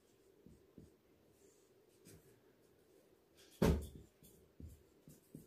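Whiteboard marker writing on a whiteboard, faint scratching strokes, with one sharp knock about three and a half seconds in and a couple of small ticks after it.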